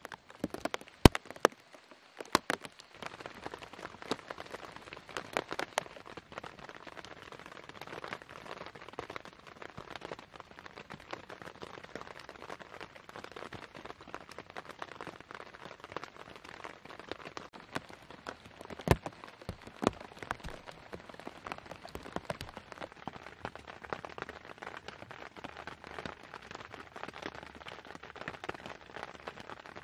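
Steady rain pattering on the tent fly and wet forest undergrowth, with many small drop ticks. A few sharper, louder taps come in the first few seconds and one near 19 s.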